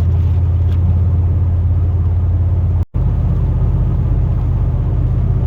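Steady low drone of a Chevrolet Silverado pickup with an Allison automatic transmission, heard from inside the cab while it drives. The sound cuts out for an instant about three seconds in.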